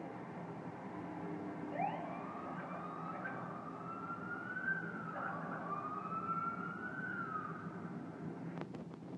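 Police siren wailing in slow rising and falling sweeps, starting about two seconds in and fading out near the end, over a steady hum of road traffic.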